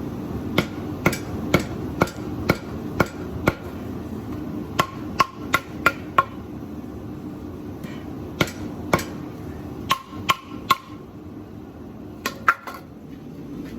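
Tabletop power hammer striking a hot leaf-spring steel blade to even out its bevels: ringing metal blows in irregular runs of a few strikes, about two a second, with pauses between runs, over a steady hum.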